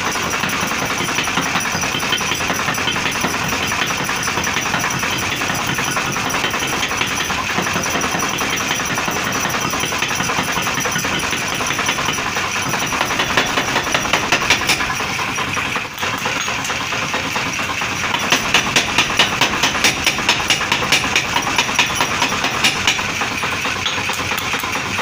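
Mechanical forging power hammer running, its ram striking red-hot steel being drawn out into a sickle blade. Runs of quick, regular hammer blows stand out from about halfway through to near the end, over the steady run of the machine.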